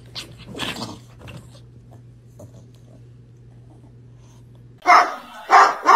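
A dog gives two short whimpering cries in the first second, then there is only a low steady hum. Near the end, loud barking starts: two barks about half a second apart.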